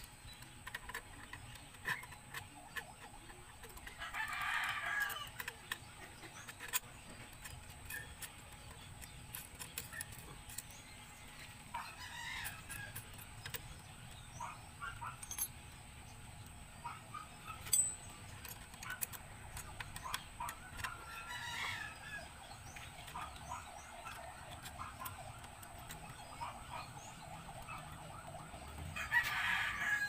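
A rooster crowing four times, about every eight seconds, with short metallic clicks and taps from hand work on a motorcycle's shift lever linkage in between.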